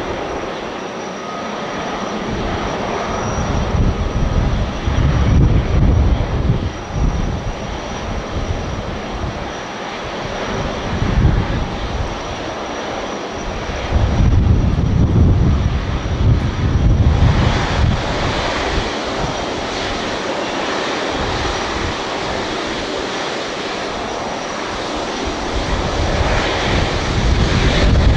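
Boeing 777-300ER's GE90 turbofan engines running at taxi power as the jet rolls slowly: a steady jet hiss and whine with low rumbles that swell and fade every few seconds. A little over halfway through, the hiss turns sharper.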